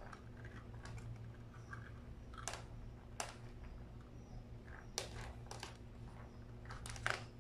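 A metal spoon clicking and scraping against a plastic takeaway container as rice is scooped out onto a plate: a few separate sharp clicks over a low steady hum.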